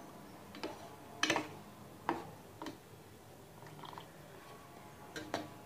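Metal spoon knocking and clinking against a stainless steel saucepan while stirring milk with dates and almonds: several light separate knocks, irregularly spaced, the loudest a little over a second in.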